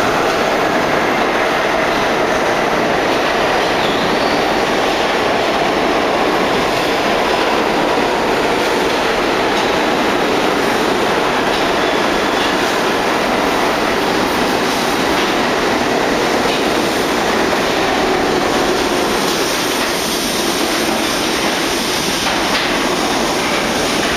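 R32 subway train pulling out of an underground station and running past the platform: a steady loud noise of its wheels on the track, easing slightly near the end as the last car passes into the tunnel.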